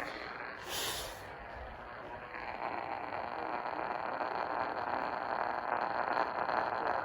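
AM radio static and hiss from a weak broadcast signal with another station interfering, a short crackle about a second in. After about two and a half seconds the hiss grows louder and a faint steady high whine joins it.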